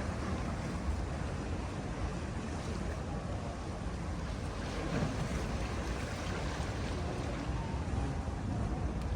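Sea waves washing onto the shore: a steady rushing noise, heaviest in the low end, that swells and eases every few seconds.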